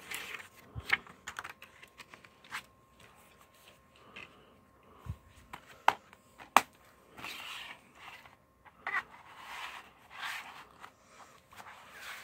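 Handling a plastic DVD case and its paper insert: light clicks and rustles, then two sharp clicks about six seconds in as the case snaps shut. After that comes a run of scraping swishes as the cardboard slipcover is slid over the case.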